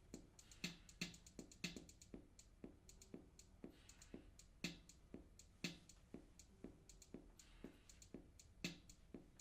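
A quiet electronic drum loop of kick and hi-hat-like hits, a steady beat of about two hits a second with a stronger accent about once a second.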